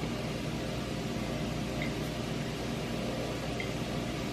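Steady background hum and hiss, with a couple of faint light ticks.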